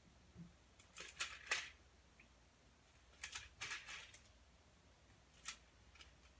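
Pages of a Bible being turned by hand: a quick cluster of crisp paper rustles about a second in, another about three seconds in, and one more near the end.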